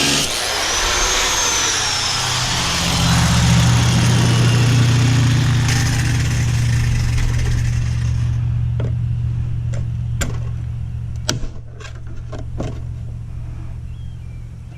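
A power tool winding down, its whine falling slowly over several seconds, over a steady low machine hum that gradually fades. In the second half, scattered clicks and knocks.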